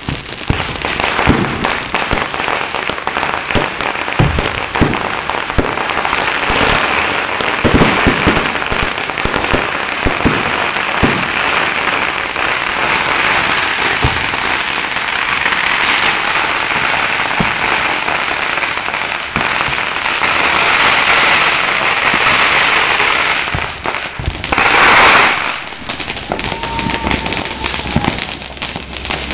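Fireworks going off in a finale: a run of sharp bangs from bursting shells, then dense continuous crackling through the middle. One loud short burst comes near the end.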